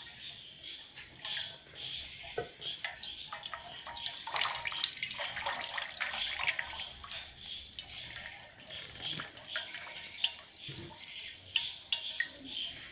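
A thin stream of water trickling from a hand-held bottle and splashing below, with many small drips. It runs busiest for a few seconds in the middle.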